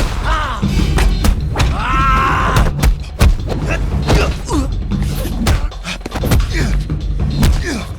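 Martial-arts fight-scene sound effects: many blows and thuds in quick succession, mixed with grunts and shouts, over a music score.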